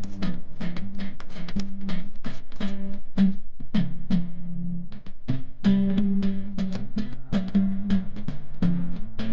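Background music: an instrumental track with plucked guitar and a steady drum beat.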